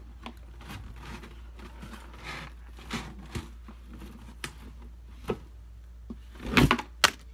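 A knife cutting and scraping at the packing tape and cardboard of a shipping box: a series of short scrapes and clicks, with a louder scrape and a sharp click near the end.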